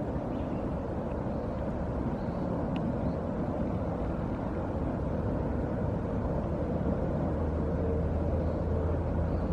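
Steady low outdoor rumble that grows slightly louder toward the end, with a few faint high chirps near the start.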